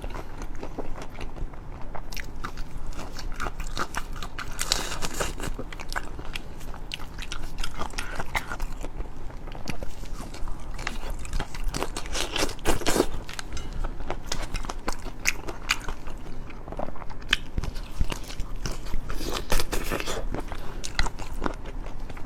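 Close-miked biting and chewing of crunchy food, with a dense run of irregular crunches and crackles.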